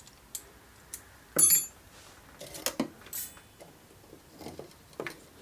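Light metallic clicks and clinks of small steel tools and parts against the air rifle's steel action. The two brightest clinks ring briefly, one about a second and a half in and another about three seconds in.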